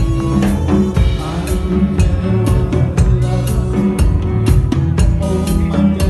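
Live band playing: a drum kit keeps a steady beat under electric bass, electric guitar and keyboard.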